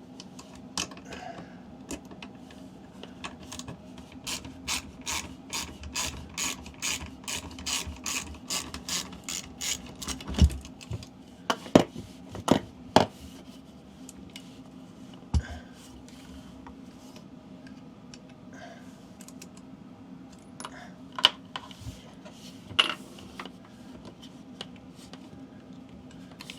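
Hand socket ratchet clicking at an even pace, about three clicks a second, as a bolt is backed out. Several sharper metallic knocks and clanks follow in the second half.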